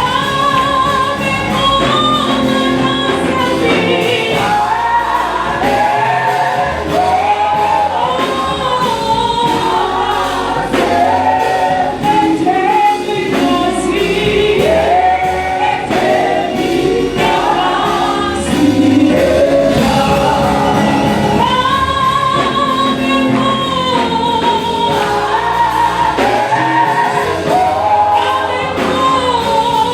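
Gospel praise music: a choir and lead voices singing over a steady band accompaniment.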